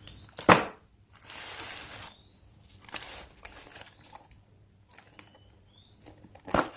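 Handling noise: a sharp click about half a second in, then two bouts of crinkling rustle, and another click near the end.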